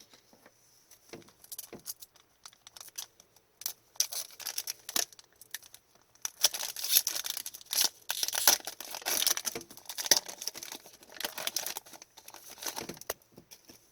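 A foil trading-card pack being torn open and its wrapper crinkled, with the cards rustling and clicking as they are handled. The crinkling is busiest and loudest in the second half.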